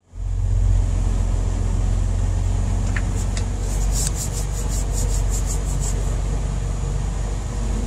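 Semi truck's diesel engine running at a crawl, a steady low hum heard from inside the cab. A run of quick light ticks, about four a second, comes in the middle for roughly three seconds.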